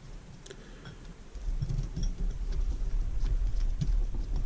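Hex driver turning screws into an RC crawler kit's chassis by hand: from about a second in, a low rumble of handling and a few faint small clicks.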